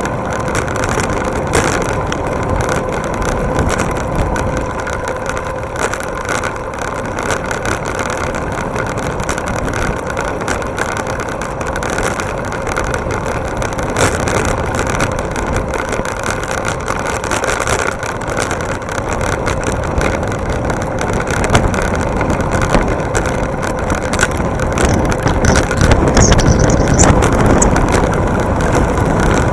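Riding an electric bike along paved track: steady wind rush and tyre and road noise picked up by the bike-mounted camera, with a faint steady whine under it. It grows louder and rumblier near the end.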